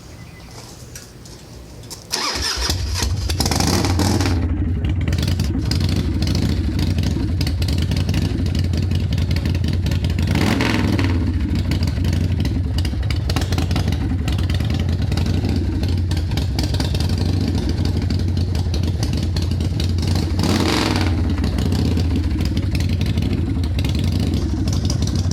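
Harley-Davidson Softail custom's V-twin engine starting about two seconds in, then idling steadily, blipped up in revs three times: just after it catches, around the middle, and near the end.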